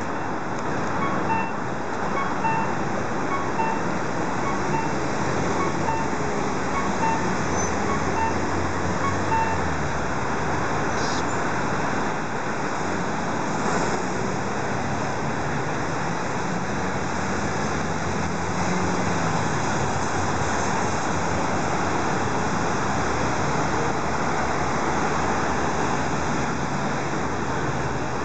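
Steady city street traffic noise. For the first ten seconds or so, a repeating beep sounds about one and a half times a second over a low engine hum, and both then stop.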